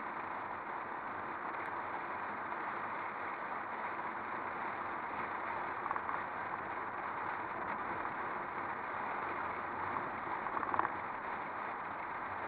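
Steady rushing road and wind noise of a car driving, picked up by a microphone mounted outside on the car's body, with a couple of light knocks near the middle and near the end.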